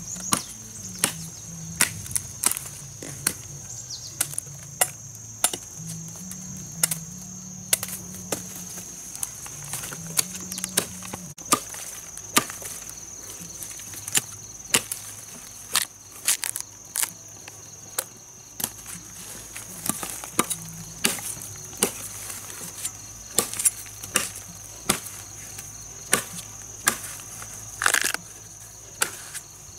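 Repeated chopping blows with a blade, about one or two a second at an uneven pace. A steady high chirring of crickets runs behind them.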